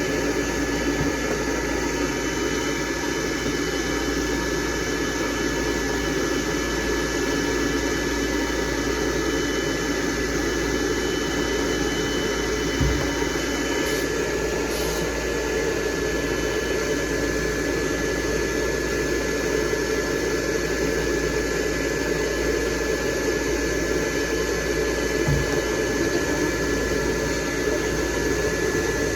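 Blow dryer running steadily on a dog's coat: an even rush of air with a constant high whine, and a couple of soft knocks.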